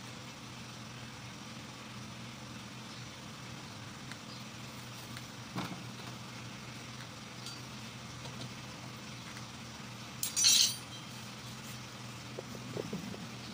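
Metal tools and engine parts handled on a workbench: a light knock about halfway through, then a short metallic clatter a little after ten seconds in, the loudest sound, and a few small clicks near the end, over a steady low hum.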